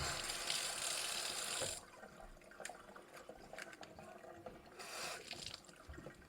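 Kitchen tap running water for a couple of seconds, then shut off abruptly. Faint clicks and handling sounds follow.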